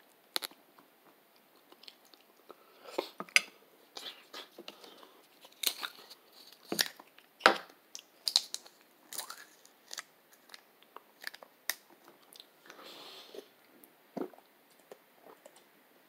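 A person chewing and eating close to the microphone: irregular wet mouth clicks and smacks with a few sharper ticks, and a short soft hiss about thirteen seconds in.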